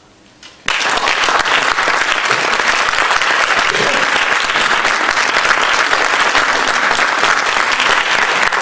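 Audience applauding, breaking out suddenly just under a second in and continuing as dense, steady clapping.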